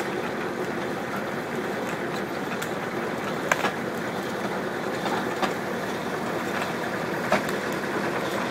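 Kubota M8200 tractor's diesel engine running steadily, driving the PTO logging winch as it draws a choked log in. A few sharp clicks come about three and a half, five and a half and seven seconds in.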